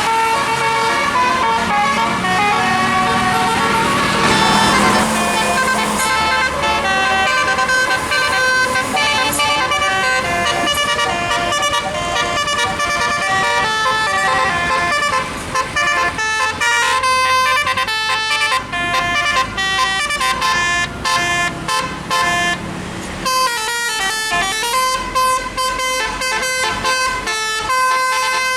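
Bus telolet horn, a set of electric air-horn trumpets playing a rapid tune of short notes that jump up and down in pitch, with several notes sounding together, and a bus engine rumbling underneath in the first few seconds.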